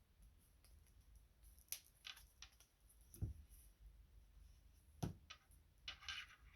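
Near silence broken by a few faint clicks, taps and soft thumps as hands handle and press on nail polish strips, with two duller thumps about three and five seconds in.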